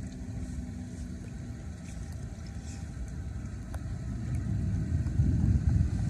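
A car approaching on the wet road, a low rumble that grows louder near the end.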